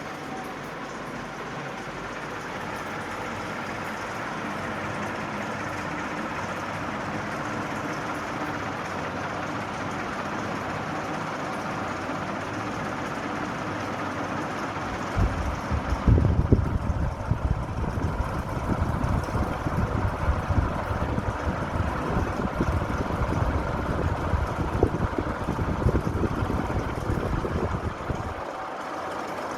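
National F560A1 ceiling fan running: a steady whirr of motor and air, with a faint steady hum. About halfway through, a low, gusty rumble of moving air buffeting the microphone joins in, then drops away near the end.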